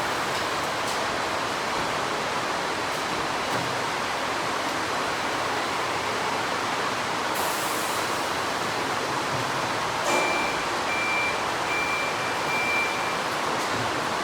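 Steady hiss-like noise of factory machinery running. About ten seconds in there is a short knock, followed by four short, evenly spaced beeps on one high tone.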